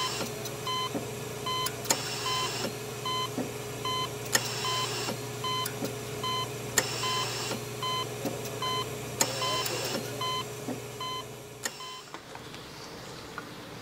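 Intro sound effect: electronic beeping a little under twice a second, with a click and a short hiss about every two and a half seconds over a steady hum. It stops about twelve seconds in.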